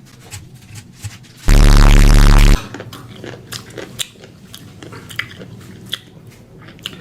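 Close-miked ASMR chewing and crunching, many sharp wet clicks of food being bitten and chewed. About one and a half seconds in, a very loud, distorted buzzing burst lasts about a second and cuts off suddenly.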